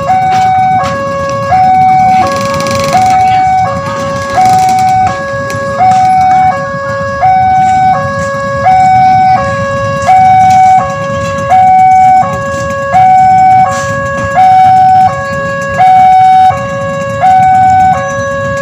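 Railway level-crossing warning alarm sounding. An electronic two-tone signal swaps evenly between a higher and a lower tone about every two-thirds of a second, the crossing's warning that a train is approaching.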